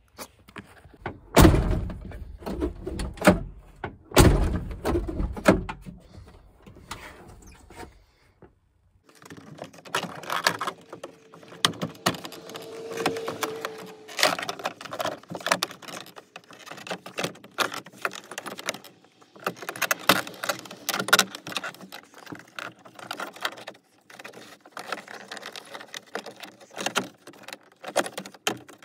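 Metal parts and tools clicking and rattling as a pickup truck's door handle hardware is worked on inside the open door, with two heavy thumps in the first few seconds.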